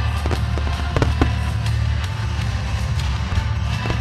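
Music with a heavy, steady bass under the sharp bangs of aerial firework shells bursting. Several bangs come in the first second and a half and another near the end.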